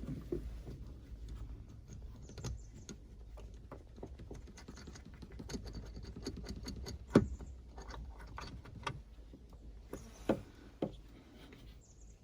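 Scattered light clicks and taps of small metal hardware being handled as a replacement hatch-glass hinge is set in place and its nut started loosely, with one sharper knock about seven seconds in.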